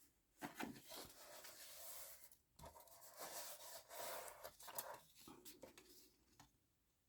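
Faint scratching strokes of a scoring tool drawn along card to score fold lines, with a few light clicks and taps.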